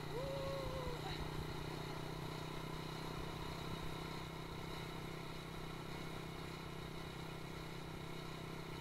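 Motor scooter engine running at a steady speed, with wind rumbling on the microphone. A short voice sounds in the first second.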